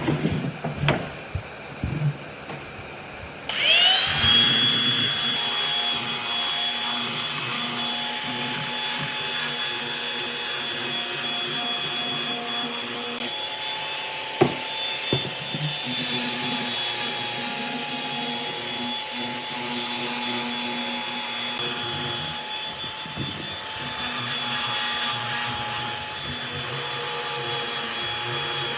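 A few knocks and clicks of handling, then an electric power tool spins up with a rising whine about three and a half seconds in and runs steadily, working on wood.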